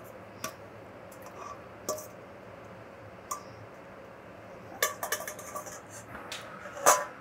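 A long metal spoon clinking and scraping against a stainless steel bowl as seasoned shrimp are spooned out into a wok. There are a few separate clinks, then a quick run of them about five seconds in, and the loudest clink comes near the end.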